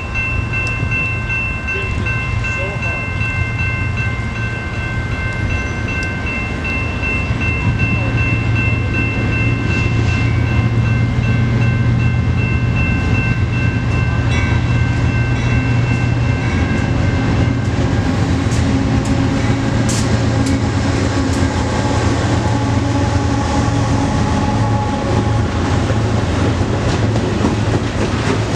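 A train passing close by: a deep engine drone and the rumble of wheels on rail. A steady chord of several high tones holds until about two-thirds of the way through and then stops, leaving the clatter of the passing cars.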